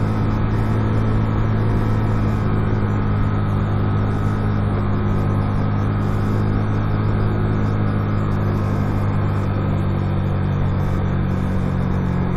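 Motorcycle engine running at a steady speed, a constant low hum of even pitch, with road and wind noise.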